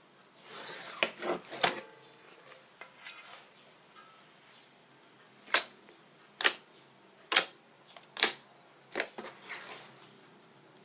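Fluffy slime being squished by hand, with a soft rustle early on and then sharp popping clicks about once a second in the second half as air pockets in the slime burst.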